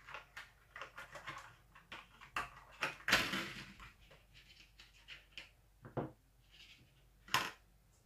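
Clicks and light clatter of small hard parts being handled, with a longer scraping rustle about three seconds in and a single sharp click near the end.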